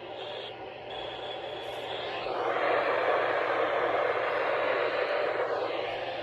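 Static hiss from a weather radio receiver, growing louder about two seconds in and easing off near the end.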